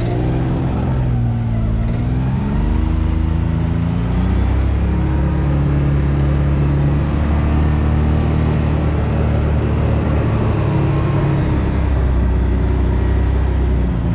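Can-Am Maverick X3 Turbo RR side-by-side's turbocharged three-cylinder engine running under way. Its pitch dips and climbs in the first few seconds as the throttle eases off and comes back on, holds a fairly steady note through the middle, and dips again near the end, over a heavy low rumble.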